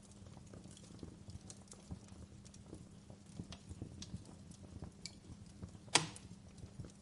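Campfire crackling: wood burning with a steady low rumble and frequent irregular small pops and snaps, and one loud sharp pop about six seconds in.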